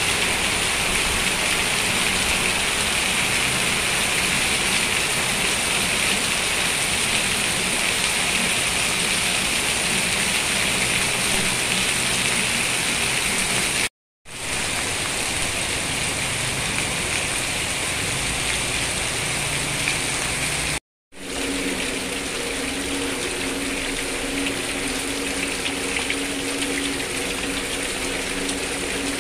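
Heavy rain pouring down on a paved yard and garden foliage: a dense, steady hiss that cuts out briefly twice. In the latter part a low steady hum sits under the rain.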